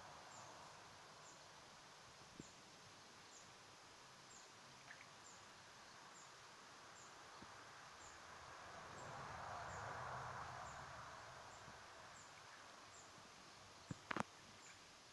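Quiet garden ambience with a faint high chirp repeating about twice a second. A soft rushing swell rises and fades about ten seconds in, and a few sharp clicks come near the end.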